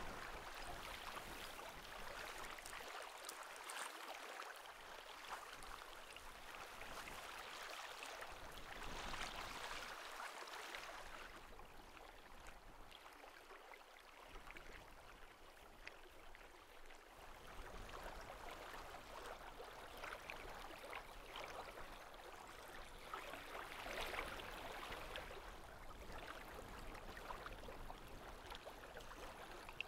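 Wind ambience: a faint, even hiss that swells and eases, louder about a third of the way in and again near the end.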